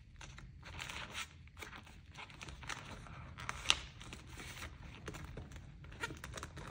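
Clear plastic binder sheets and envelopes rustling and crinkling as they are handled and flipped, with one sharp click about halfway through.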